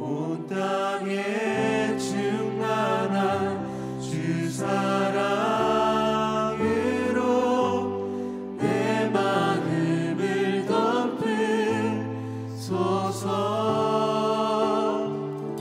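Worship band singing a contemporary praise song, male and female voices together, over acoustic guitar and keyboard with held chords and a moving low bass line.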